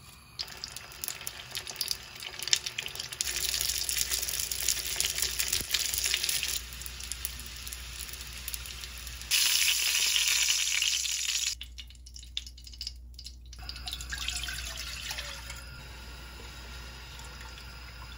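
Hot oil sizzling and crackling as rice-paper-wrapped pork pieces (guobaorou) shallow-fry in a small square pan. It comes in several short takes, and the loudest stretch cuts off suddenly about eleven and a half seconds in.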